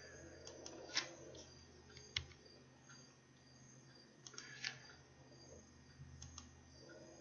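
Faint, scattered clicks of a computer mouse and keyboard keys during text editing, over a low steady hum. The three sharpest clicks come about a second in, about two seconds in, and a little after four and a half seconds, with lighter taps between them.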